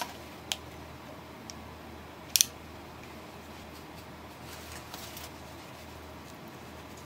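A few sharp plastic clicks as two-part epoxy glue is squeezed from its dispenser and a small pigment bottle is handled, the loudest a quick double click about two and a half seconds in. Then faint scraping as the glue is stirred with red pigment on a plastic sheet.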